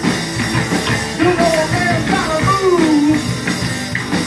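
A live rock band playing, with a man singing over electric guitar, bass guitar and a drum kit.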